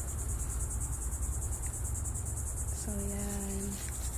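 Steady high-pitched insect chorus with a fast, even pulsing, over a low rumble. About three seconds in, a short steady low tone sounds for just under a second.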